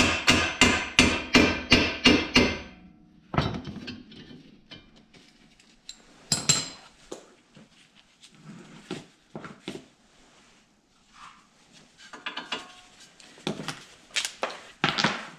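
Hammer striking the end of a Ford Fiesta's front CV axle to drive it out of the wheel hub: sharp, ringing metal blows at about three a second that stop about two and a half seconds in. Scattered lighter metal clanks and knocks follow, with a few louder ones near the end.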